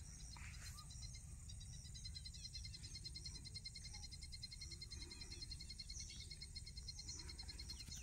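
Faint chorus of insects trilling in fast, evenly pulsed notes without a break, over a low steady rumble.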